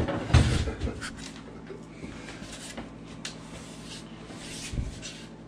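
A knock about half a second in as a laminate plank is handled, then a carpenter's pencil scratching a mark along the plank's edge, with a dull thump near the end.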